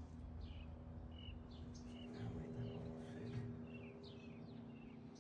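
Small birds chirping: a string of short, high chirps, several falling in pitch, over a faint steady hum.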